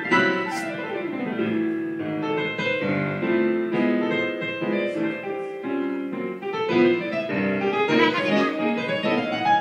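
Digital piano played by a three-year-old with both hands, many notes at once. A run of notes steps down the keyboard in the first second or so, clusters of notes fill the middle, and notes climb up the keyboard near the end.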